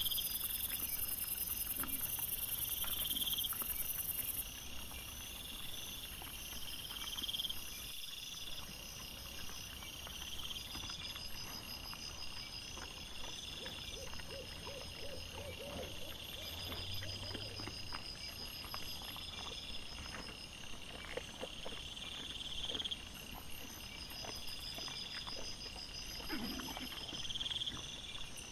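A night chorus of insects chirping, with layered high-pitched pulsed trills that repeat over and over at several pitches, and faint scattered clicks and rustles underneath.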